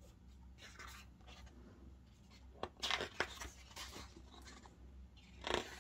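Paper and card rustling and scraping as a large photo book is handled and opened, in a few short rustles: about a second in, around three seconds in, and near the end.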